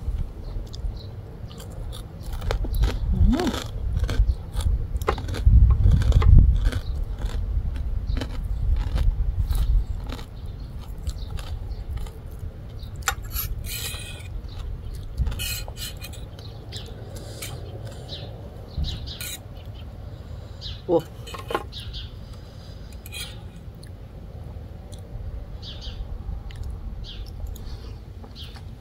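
Close-up eating sounds: crunchy pork cracklings and papaya salad being chewed, with a fork clinking and scraping on a plate now and then. The chewing is loudest in the first ten seconds.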